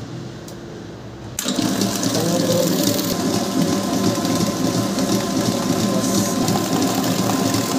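Commercial planetary food mixer starting up suddenly about a second and a half in, then running steadily, its wire whisk beating sponge cake batter in the steel bowl.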